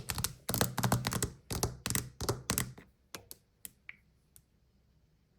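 Quick run of hand taps and thunks on a hard surface, thinning after about three seconds to a few scattered clicks.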